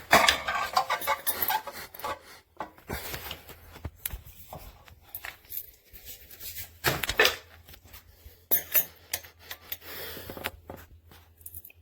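Irregular rubbing, scraping and light clinks of things being handled, over a faint steady low hum.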